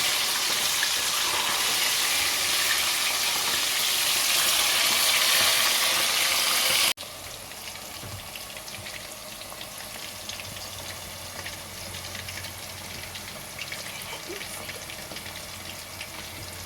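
Marinated chicken pieces frying in hot oil, a steady loud sizzle. About seven seconds in it cuts abruptly to a quieter sizzle with scattered small crackles and spits.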